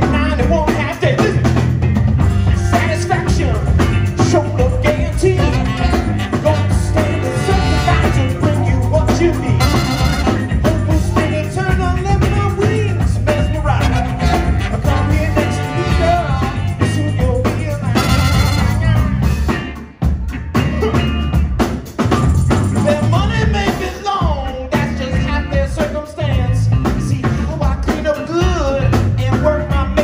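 Live band with a horn section of baritone saxophone, saxophone and trumpet playing over electric bass, guitar, keyboard and drums. The band drops out briefly about two-thirds of the way through, then comes straight back in.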